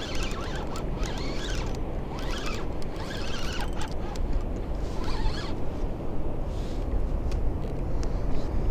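Fishing reel being cranked in several short bursts while a hooked fish is pulled up, over a steady low rumble of wind and water. The cranking stops about five and a half seconds in.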